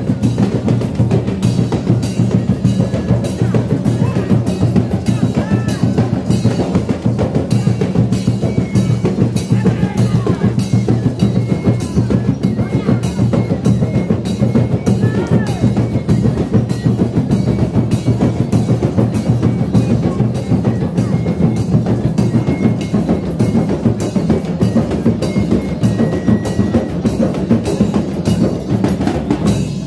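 An ensemble of rebana frame drums beaten by hand together in a steady, even rhythm, loud and continuous, stopping right at the end.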